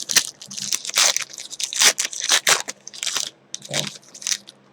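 Foil trading-card pack wrappers crinkling and tearing as packs are torn open and handled, in an irregular run of quick crackles.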